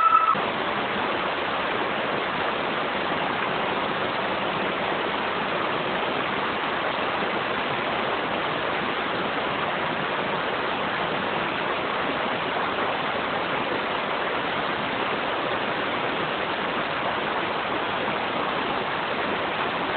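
Water of a waterfall stream flowing steadily, an even hiss that doesn't change.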